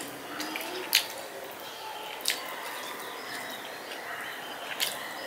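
Eating by hand from a steel plate, rice and curry being mixed with the fingers, with three sharp clicks: about a second in, a little past two seconds, and near the end.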